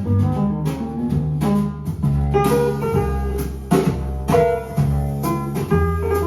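Instrumental music: plucked string notes over sustained low bass tones.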